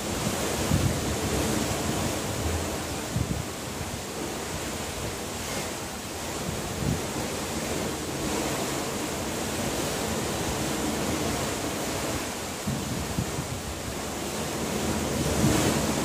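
Wind buffeting the microphone over a steady rush of sea water, with gusts every few seconds and the strongest one near the end.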